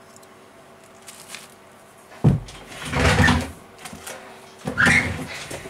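Workbench handling noise: a sharp knock about two seconds in, then scraping and rustling, and a second burst of rustling near the end, as plastic tablet parts are moved about and set down on a cork work mat.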